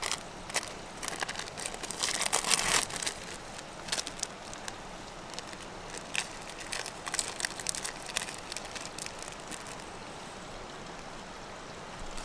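Thin plastic wrappers crinkling as individually wrapped processed cheese slices are peeled open, in irregular bursts of crackling, over a steady background hiss.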